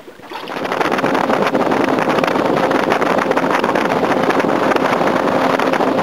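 Outboard motor of a small aluminum skiff running steadily with the boat underway, with wind noise on the microphone. The sound comes up about half a second in and then holds steady.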